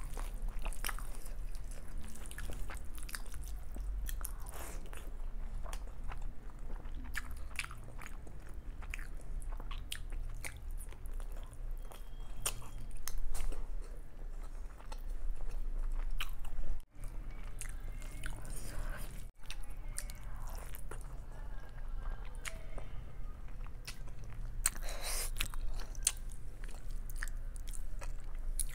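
Close-miked chewing and wet mouth sounds of chicken biryani eaten by hand, with a louder crunchy bite of raw red onion near the end.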